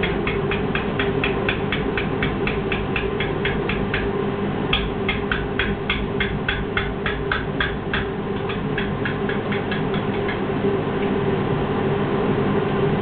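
Stirring utensil clicking against a mixing bowl as pancake batter is stirred, about four strokes a second, growing sparser after about eight seconds, over a steady hum.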